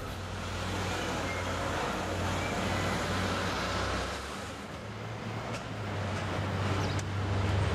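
City street traffic: passing cars with a steady low rumble that eases off a little past halfway and builds again near the end.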